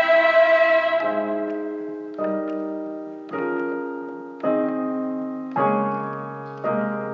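A choir's held chord dies away, then a digital piano plays six slow chords, one about every second, each left to ring and fade.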